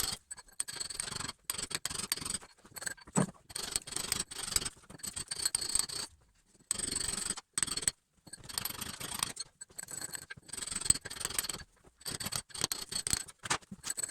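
Irregular scraping and rasping of a scutch chisel against brick and plaster as a backbox recess is cleaned out, with an occasional sharper knock.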